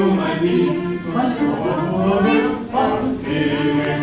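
A group of voices singing a slow, unaccompanied song in held notes.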